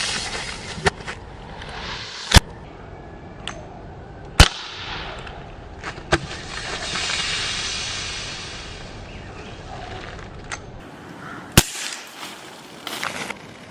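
Dan Wesson 4-inch CO2 BB revolver firing single shots: sharp cracks a second to several seconds apart, the loudest three about 2.5, 4.5 and 11.5 seconds in, with fainter clicks between them. A rushing hiss swells and fades twice underneath.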